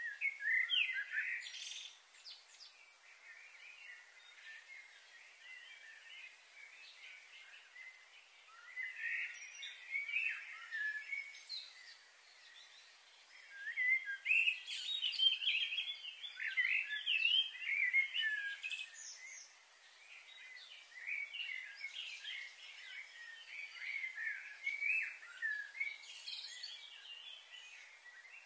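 Small birds chirping and twittering in scattered bursts, with a quieter stretch in the first few seconds.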